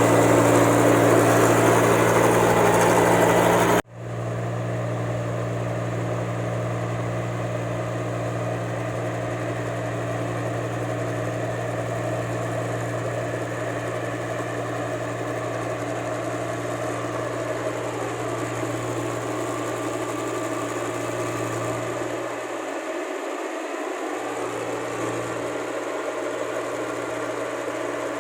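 Rice combine harvester's diesel engine running steadily, loud at first, then cutting off abruptly about four seconds in and going on somewhat quieter, with small shifts in pitch after the middle.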